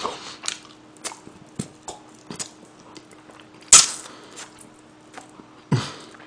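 Close-miked eating of a fried chicken drumstick: small chewing and lip-smacking clicks. Two sudden, sharp hiccups come about two seconds apart, the first nearly four seconds in.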